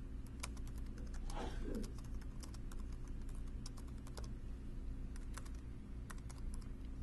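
Typing on a computer keyboard: a run of quick, irregular keystrokes as a short line of text is typed, with a steady low hum underneath.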